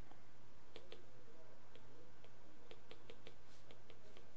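Stylus tip tapping and clicking on a tablet screen during handwriting: irregular light ticks, more of them in the second half, over a steady low electrical hum.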